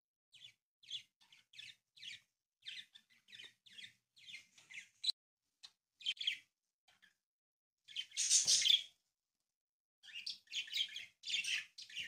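Origami paper rustling and crackling in short bursts as hands fold and crease it, with a longer, louder rustle about eight seconds in.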